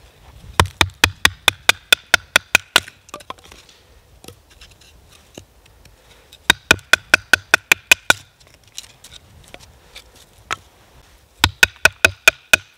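Batoning: a Kephart-pattern bushcraft knife driven down through a piece of split firewood by quick strikes of a wooden baton on its spine, in three runs of rapid knocks about five a second, the steel blade ringing under the blows. The blade is splitting the wood readily.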